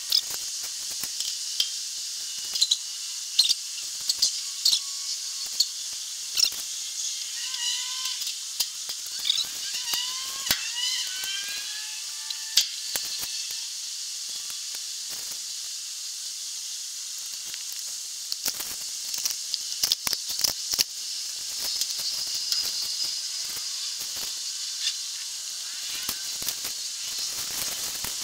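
A 3-ton floor jack being worked under the end of a steel shipping container: sharp clicks and metal knocks come and go over a steady hiss. A run of short rising chirps comes about eight to twelve seconds in.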